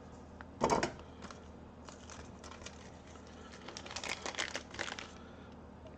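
Handling noise on an electronics workbench: a sharp knock about 0.7 s in, then a run of light clicks and rustles as tools and small parts are moved about.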